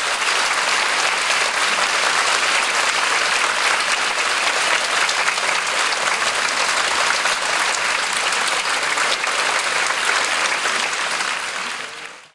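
Theatre audience applauding steadily for a curtain call. The applause fades out near the end.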